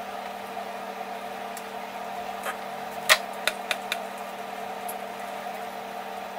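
A few light knocks and taps of a PVC pipe being handled over a gas stove's burner grate, the sharpest about three seconds in, over a steady background hum.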